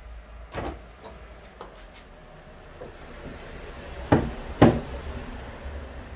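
Plastic retaining clips of an Abarth 500 door trim panel popping out of the door as the panel is levered off with a plastic trim tool: a few small clicks, then two loud sharp cracks about half a second apart. The cracking of the clips is normal as they release and no sign of breakage.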